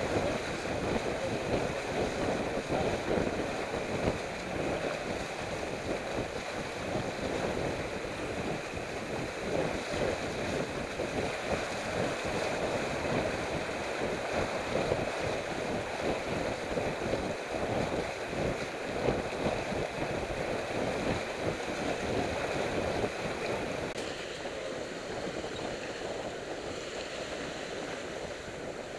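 Water rushing and splashing along the hull of a sailboat heeled under sail, with wind buffeting the microphone. About 24 seconds in it changes to a quieter, duller rush.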